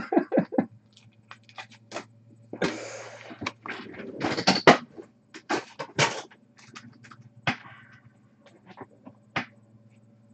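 Trading-card packaging and cards being handled on a table: scattered clicks, knocks and rustling, busiest about two to six seconds in and thinning out near the end, over a faint low hum.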